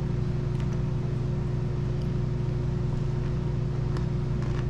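Steady low mechanical hum from a running motor, with a few faint clicks over it.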